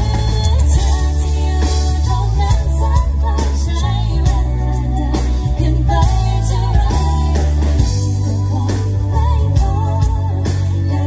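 A live pop band plays a song: strummed acoustic guitar, electric bass and drum kit, with a woman singing the melody.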